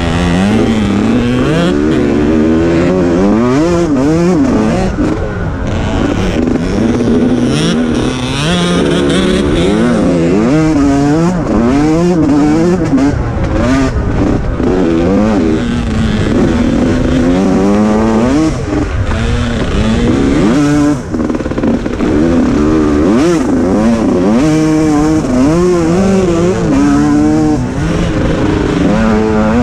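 Engine of a Senior Mini class off-road racer, heard from on board, revving up and falling back over and over as the throttle is worked around the track. A steady low rumble of wind and ground noise runs underneath.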